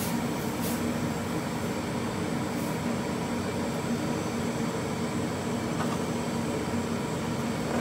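Steady mechanical hum in a kitchen, with a few faint knocks as a cleaver works lemongrass stalks on a plastic cutting board.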